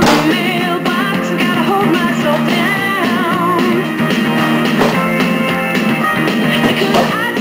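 Rock music with singing, guitar and drums.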